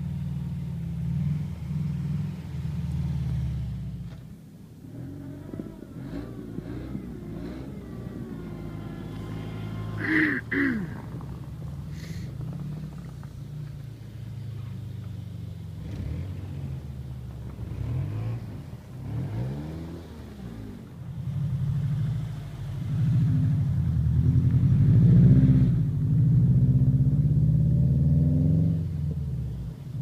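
Car engines revving hard on snow, the pitch rising and falling again and again as the cars are driven sideways. A short, sharp higher sound comes about ten seconds in, and the longest, loudest revving comes near the end.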